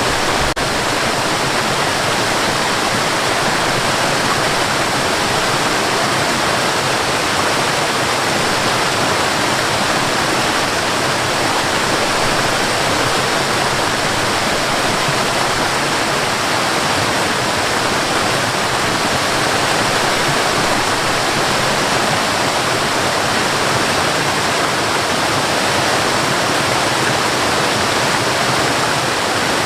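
Waterfall and river water rushing, a steady dense splashing roar.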